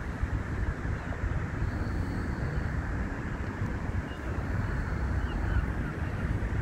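Steady low outdoor rumble, with wind buffeting the microphone.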